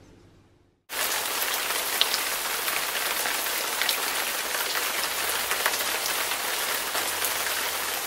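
Recorded heavy-rain sound effect (iMovie's 'Hard Rain'): the steady, dense hiss of a downpour, starting abruptly about a second in.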